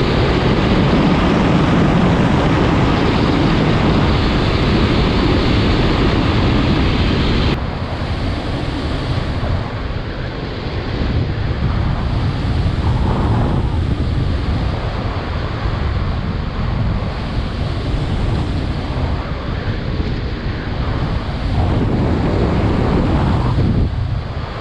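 Strong wind rushing over the microphone, a loud steady roar. It drops sharply about seven and a half seconds in and carries on a little lower and gustier.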